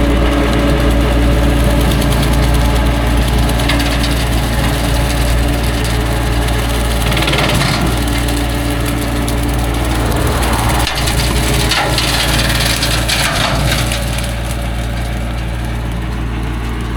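Mahindra tractor engine running steadily under load while its brush hog (rotary cutter) shreds thick brush, with several bursts of woody crackling and splintering as stems up to about an inch thick are chopped.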